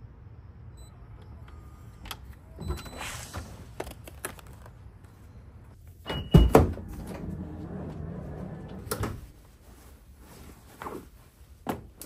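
Clicks and a brief hiss as an NFC card is tapped on a SwitchBot Lock Pro retrofit smart lock, then a short high beep and a heavy clunk as a car door is pulled open, followed by rustling and a few more clicks as someone climbs into the car.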